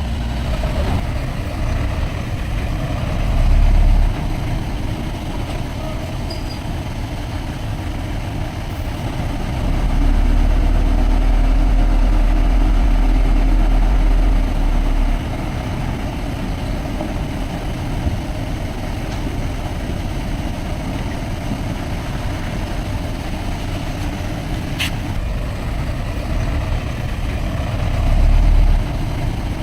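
Diesel engine of heavy earthmoving machinery running steadily, with deep rumbling swells as it is put under load: briefly about three seconds in, for several seconds from about ten seconds in, and again near the end. A single short click is heard partway through.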